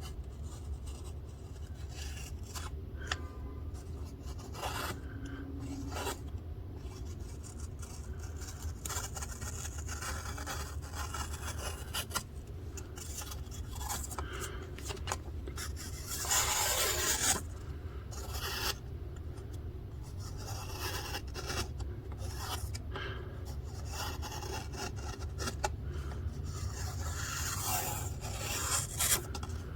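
Freshly sharpened knife blade slicing paper: a run of irregular rasping cuts, one longer and louder just past the middle, over a low steady hum.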